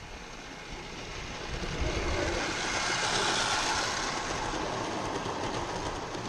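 Large-scale model train running past close by on garden railway track, its wheels rumbling and hissing on the rails. The sound swells to a peak about three seconds in as the locomotive and coaches pass, then fades.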